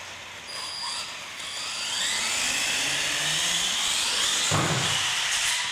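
Radio-controlled monster truck's motor whining, rising in pitch as it speeds up across the floor toward a jump ramp. A short thump near the end as it hits the ramp.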